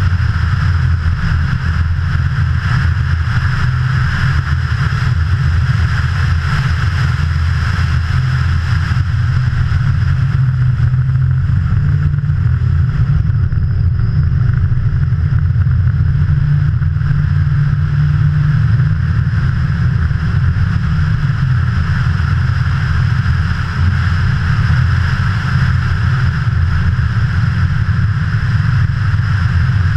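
A V1600-class jokkis car's engine heard onboard, pulling steadily as the car drives the ice track, with an even hiss of tyre and wind noise over it. The engine note rises and falls a little around the middle.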